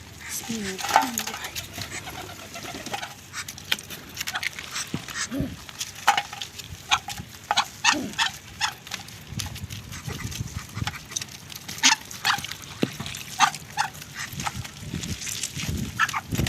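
Animal calls: many short, high chirps or yelps coming at irregular intervals, with a few lower, gliding calls in the first second or so.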